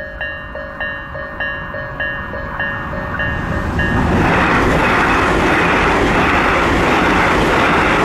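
Japanese level-crossing warning bell, the low-pitched Isesaki-type electronic bell in its slow version, dinging a little under two strokes a second. About four seconds in, a red Tobu 200 series electric train passes over the crossing at speed, and its loud wheel and running noise covers the bell.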